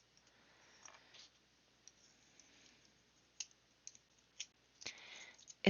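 A few light clicks of plastic puzzle-cube pieces being handled and fitted together, mostly in the second half.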